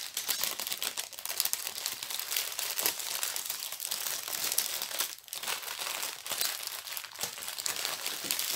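Small plastic sachets of diamond-painting beads crinkling and rustling as they are handled, a dense crackle with a brief lull about five seconds in.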